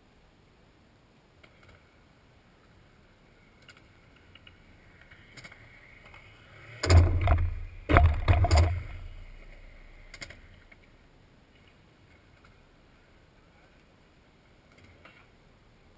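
Skateboard doing a trick on the ledge right beside the camera: a few faint clicks as it comes in, then two loud hits about a second apart as the board strikes the ledge, fading quickly.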